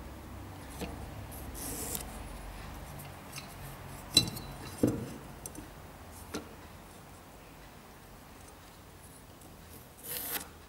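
A steel combination square is set down and shifted against a wooden blank while a pencil marks lines along it. Light clicks and taps of the metal square on the wood, the loudest about four seconds in with a brief metallic ring, and short pencil scratches, the last near the end.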